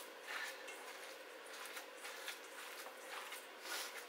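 A hand kneading and squeezing raw beef mince mixed with egg in a stainless steel bowl: soft, irregular wet squelches, several a second.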